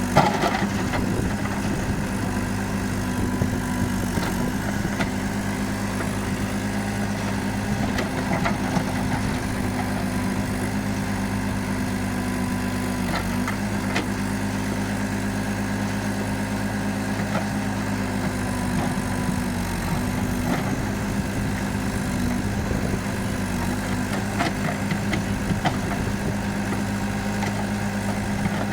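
Diesel engine of a Komatsu FAI 898 backhoe loader running steadily, its note dipping briefly twice, with a few light clicks and knocks over it.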